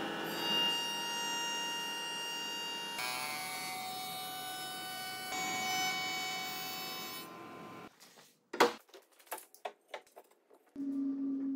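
Router spinning a Freud finger joint bit in a router table: a steady whine whose pitch mix shifts about three seconds in and again past five, fading out near eight seconds. A few light knocks follow as the wood is handled.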